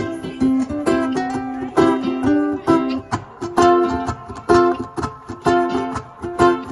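Ukuleles strumming chords in a steady, repeating rhythm, with no singing.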